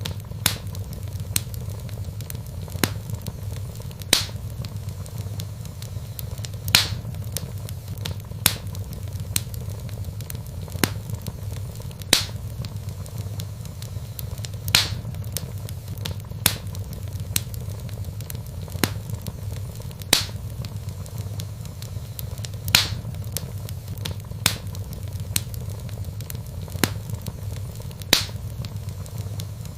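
Wood fire crackling in a fireplace: sharp irregular pops and snaps, a few louder ones every couple of seconds, over a steady low rumble of the burning logs.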